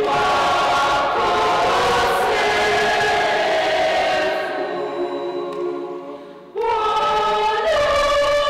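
Church choir singing a hymn in several voices, holding long notes. The singing fades away about five seconds in and comes back abruptly about a second and a half later.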